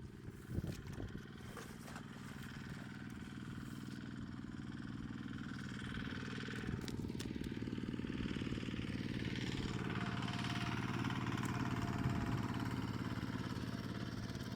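Tractor engine running steadily, growing louder over about ten seconds as it draws near, with a few clicks about a second in.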